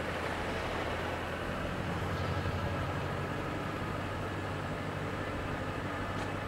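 Mercedes-Benz R230 SL500 V8 running at low revs through an MEC Design stainless-steel aftermarket exhaust (the loud 'Earthquake' version) as the car sets off and rolls slowly past: a steady deep exhaust hum that swells slightly about two seconds in.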